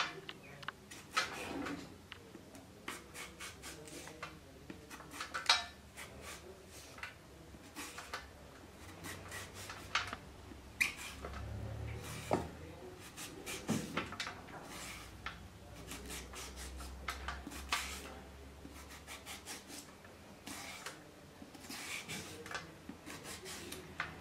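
Zucchini being grated into long strands on the coarse blade of a hand-held julienne grater: a run of irregular scraping strokes.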